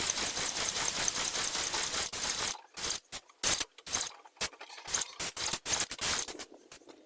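Airless paint sprayer hissing as it sprays: one steady spray for about two and a half seconds, then a run of short trigger bursts.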